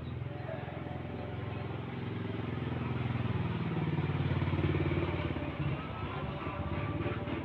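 Engine of a passing motor vehicle, growing louder to a peak past the middle and then fading away.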